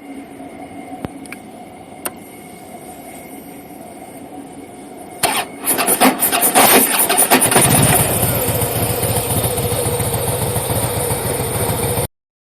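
2010 Harley-Davidson FXSTC Softail's Twin Cam 96 V-twin, with a newly fitted Screamin' Eagle compensator, being started. Two sharp clicks come first. A few seconds later the starter cranks for about two seconds, the engine fires and then runs steadily.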